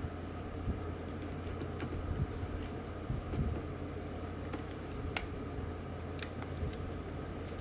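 Small metal parts of a Penn 320 GTi level-wind fishing reel clicking and tapping as they are fitted by hand during reassembly. The light clicks are scattered, with a louder one about five seconds in, over a steady low hum.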